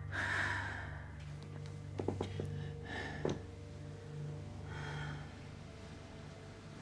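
A person's breaths and gasps, with a few small clicks, over a low, steady music bed.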